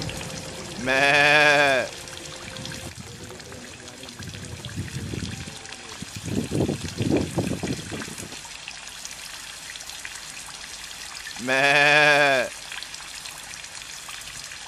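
Two loud, drawn-out bleats from an animal in a flock of goats or sheep, about ten seconds apart. Between them, rainwater trickles and drips, rising in a rougher patch midway.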